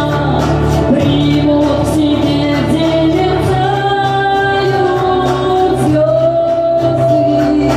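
A woman singing a Russian pop song over a karaoke backing track, holding long notes.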